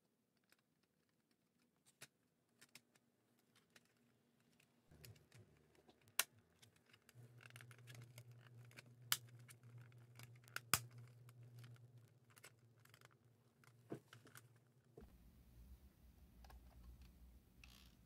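Plastic casing of a Sony Discman D-E200 portable CD player being handled and pressed together: scattered light clicks and taps, with a few sharper snaps around the middle.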